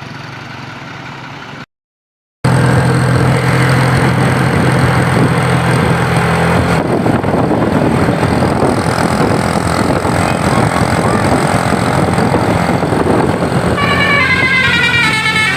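Bus on the road, loud, with a steady low engine drone and a rushing road noise, broken by a brief gap in the sound about two seconds in. Near the end its telolet basuri horn starts up, playing a fast melody of stepping tones.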